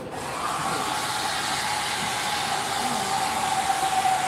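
A machine comes on abruptly and runs with a steady rush of air and a steady mid-pitched whine.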